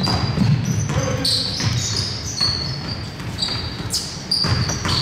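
Basketball being played on a gym court: a ball bouncing and sneakers squeaking on the floor, heard as repeated short, high squeaks.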